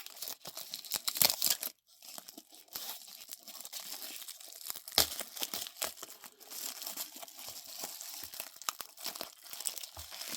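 Packaging crinkling and tearing as it is handled and pulled open by hand, in irregular rustles with a few sharper snaps.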